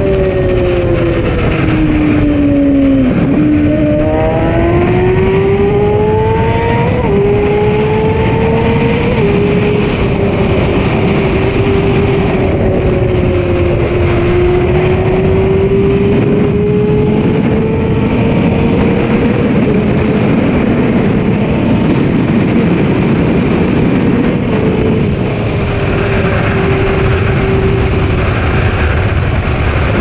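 Sport motorcycle engine under way at road speed, with heavy wind noise on the microphone. The engine note sinks for the first few seconds, then climbs as the bike accelerates, dipping briefly at two gear changes, before settling into a steady cruise that rises and falls gently.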